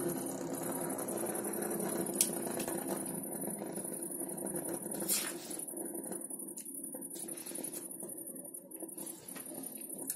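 Beyblade Burst Zillion Zeus spinning top whirring steadily on a wooden tabletop after its launch, slowly fading as it loses speed. A couple of sharp clicks come about two and five seconds in.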